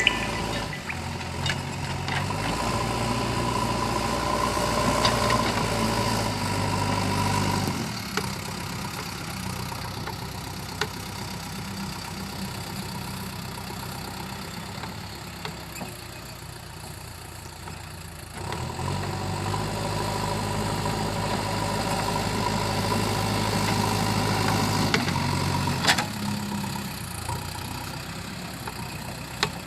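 JCB 3DX backhoe loader's diesel engine working: it revs up under load for several seconds, drops back to a lower, quieter running speed, then revs up under load again, with a steady whine over the engine note during each loaded stretch.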